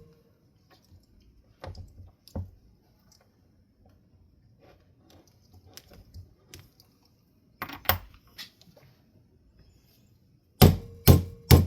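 A few light knocks and clicks, then near the end three hard blows about half a second apart: a new sealed ball bearing being driven onto a ceiling fan motor's shaft through a metal tube.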